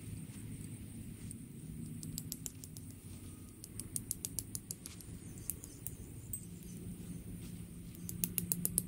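Faint outdoor ambience: a steady high insect drone like crickets, with several short runs of quick, faint ticks about two, four to five, and eight seconds in.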